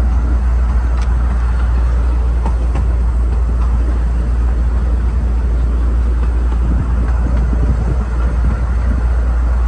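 A narrow-gauge railway carriage running along the track: a steady, heavy rumble with occasional faint clicks from the wheels on the rails.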